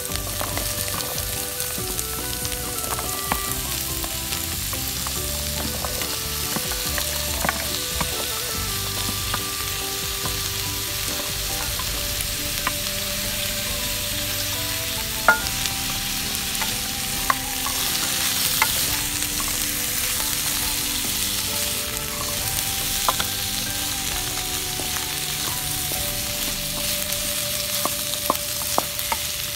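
Cubed squash frying in hot oil in a wok with sautéed onion, garlic, ginger and green chilies: a steady sizzle, with occasional sharp clicks as pieces drop in and are stirred.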